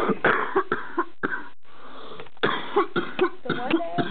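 A person's voice: short coughs and throat sounds, with a few mumbled vocal sounds in the second half, among short sharp clicks.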